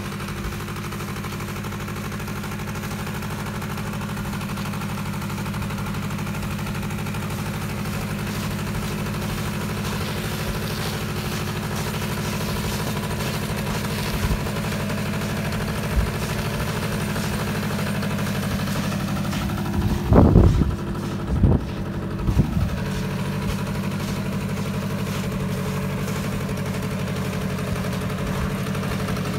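Polaris ATV engine running steadily under load as it tows logs over snow, with a few loud low thumps about two-thirds of the way through.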